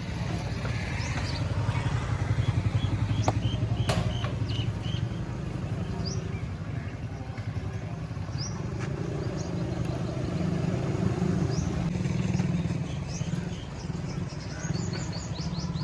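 A steady, rapidly pulsing low engine rumble, like a motorcycle running, with birds chirping now and then and a sharp click about four seconds in.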